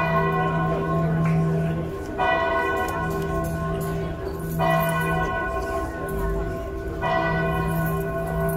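A large bell tolling slowly, struck about every two and a half seconds, each stroke ringing on and dying away while its low hum carries underneath.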